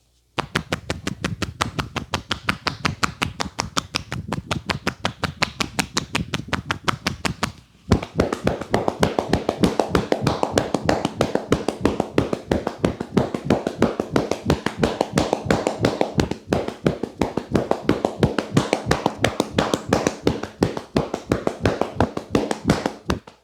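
Rapid rhythmic slaps and taps of a barber's hands in a percussive head massage, about six strikes a second. There is a brief break about seven and a half seconds in, after which the strikes come fuller.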